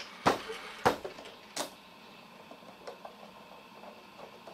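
Three sharp knocks within the first two seconds, then faint irregular ticks: a hand screwdriver and wooden toolbox parts being handled as a screw is driven by hand into the wooden side panel.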